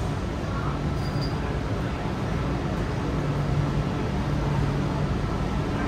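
Steady running noise inside a Hanoi Metro Line 2A train car: an even rumble with a low hum that fades in and out.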